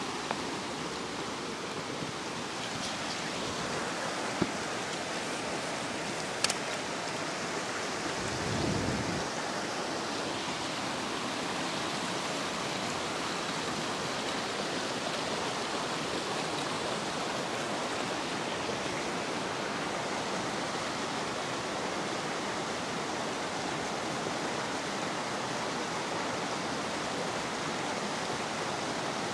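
Fast river rapids rushing steadily. A couple of sharp clicks come a few seconds in, and a brief low rumble about nine seconds in.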